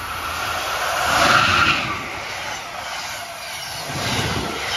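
Amtrak passenger train, an electric locomotive hauling coaches, passing at speed: a loud rush of wind and steel wheels on the rails, loudest about a second in as the front goes by, with a rumble swelling again near the end as further trucks pass.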